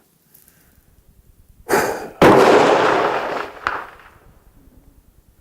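A single rifle shot from a .223 Remington AR-15-style rifle (Daniel Defense DDM4v11) about two seconds in, a sharp blast whose echo rings out for over a second before dying away, just after a shorter burst of noise.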